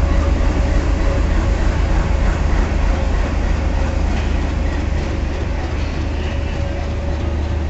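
WDM3D diesel-electric locomotive's engine running with a steady, deep rumble.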